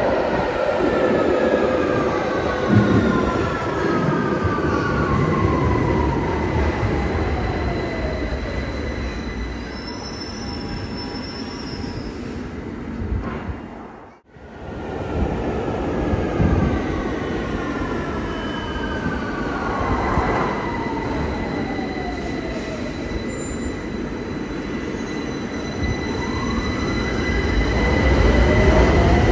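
London Underground Victoria Line 2009 Stock train braking into the platform: rumble with the falling whine of its traction motors as it slows. After a short break about halfway, the falling whine comes again, a steady high tone runs beneath it, and near the end a rising whine and growing rumble as the train starts to pull away.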